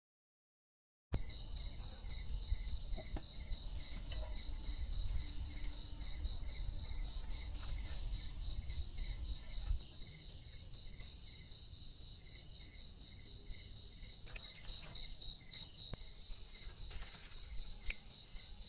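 Insects, crickets or similar, calling in a steady chorus: one high continuous trill and a lower chirp pulsing about three times a second, over a low rumble. The sound starts about a second in, after a brief gap of silence.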